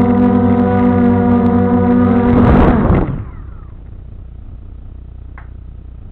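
A small 125 g quadcopter's electric motors and propellers whine steadily, heard close from the camera on board. About two and a half seconds in there is a short loud rush of noise, then the whine falls away as the motors spin down, leaving a low hum and a few faint clicks.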